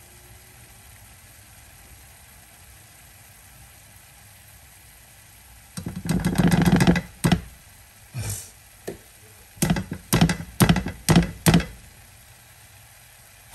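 Metal spoon clicking against a jar as tomato paste is scooped, a quick rattling run about six seconds in, then about half a dozen sharp taps on the rim of the frying pan to knock the paste off the spoon.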